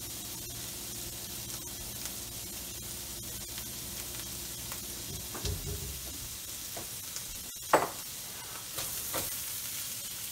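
Shrimp sizzling in hot oil in a nonstick wok, a steady frying hiss. A single sharp knock comes about three-quarters of the way through, and near the end the spatula starts stirring the shrimp.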